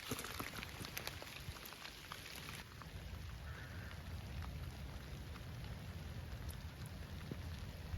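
Rain falling, with close drops pattering. About two and a half seconds in the high hiss drops away, leaving softer rain over a low rumble.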